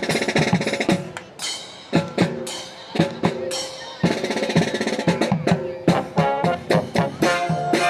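Music with drums keeping a steady beat under sustained pitched instruments.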